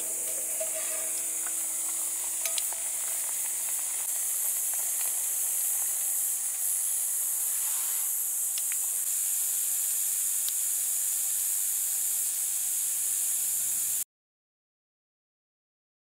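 Steady hiss of a wood fire and an aluminium camp cooker of soup simmering on it, with a few light clicks and clinks as the cooker is lifted off by its wire handle. The sound cuts off to silence near the end.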